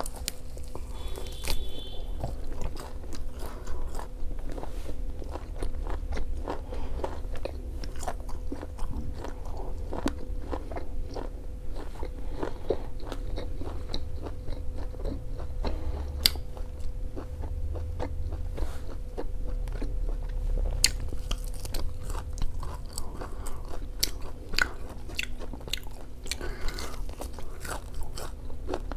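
Close-miked chewing and biting of crispy fried pork, a steady run of irregular crunches and wet mouth clicks.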